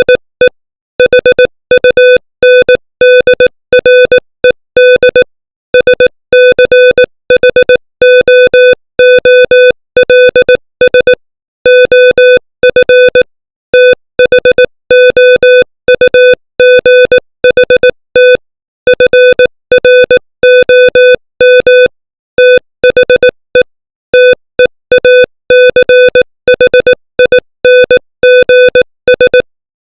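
Morse code at 18 words per minute: a single steady electronic tone keyed on and off in short dots and longer dashes, with brief gaps between letters and longer pauses between words.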